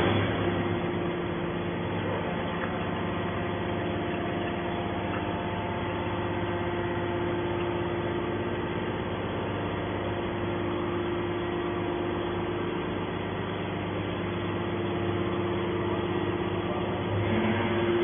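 Hydraulic scrap metal baler running steadily: the electric motor and hydraulic pump keep up an even hum while the ejection cylinder pushes a compressed bale of stainless steel shavings out of the press chamber.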